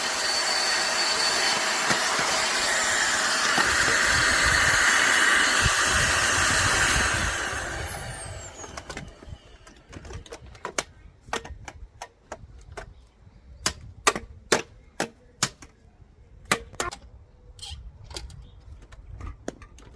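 Henry vacuum cleaner's motor running steadily, then switched off and winding down with a falling whine about seven seconds in. A quick series of sharp plastic clicks and knocks follows.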